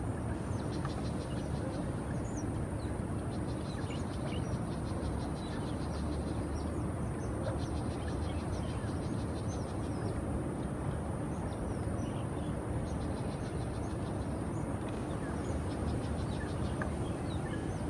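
Steady low rumble of outdoor background noise, with scattered short high chirps and a few stretches of fast, evenly spaced high ticking.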